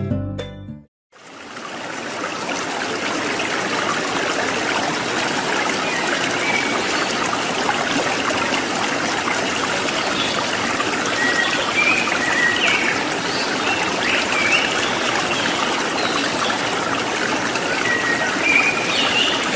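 Steady rush of flowing water, like a stream, with a few faint short high chirps over it. It starts about a second in, just after a closing bit of music cuts off.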